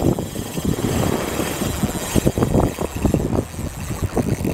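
Wind buffeting the microphone: a loud, low rumble that surges and drops unevenly with the gusts.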